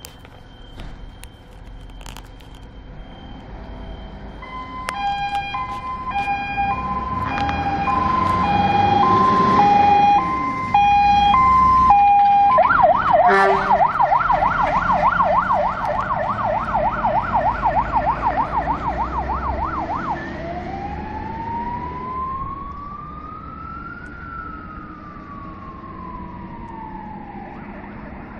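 Volvo fire engine pulling away with its electronic siren sounding over the engine. About five seconds in, the siren starts a two-note hi-lo. Near halfway it switches to a fast yelp, then in the last third to a slow wail that rises and falls, quieter as the truck drives off.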